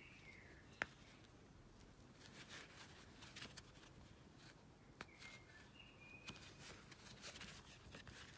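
Near silence with faint ticks and scratches of a crochet hook working yarn, a sharper click about a second in, and a few faint short high chirps near the start and again about five seconds in.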